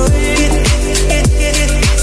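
Background music with a steady beat: deep drum hits that drop in pitch come about every 0.6 seconds over held chords.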